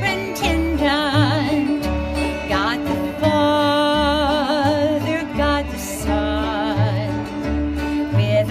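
Bluegrass band playing: upright bass thumping out low notes about once a second under strummed acoustic guitar and bowed fiddles, with a woman singing.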